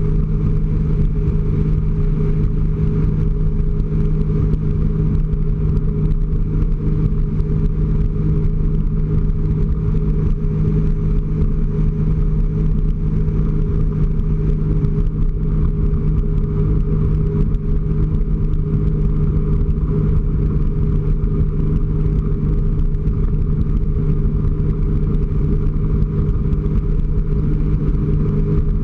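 Engine of a 2008 Sea-Doo RXT personal watercraft, a supercharged Rotax 4-TEC three-cylinder four-stroke, running at a steady cruising throttle: a loud, constant drone that neither rises nor falls.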